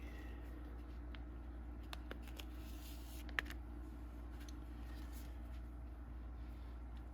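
Baseball cards being handled: a few light clicks and rustles, the sharpest about three and a half seconds in, over a steady low hum.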